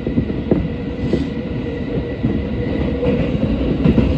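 Tokyo Metro 17000 series subway train running at speed through a tunnel, heard from inside the car: a steady rumble of wheels on rail with scattered clacks.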